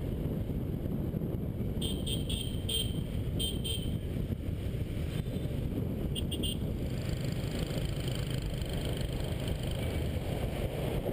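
Motorbike riding in heavy scooter traffic: a steady rumble of engines and wind on the camera, with a run of short horn beeps about two seconds in and a quick triple beep around six seconds in.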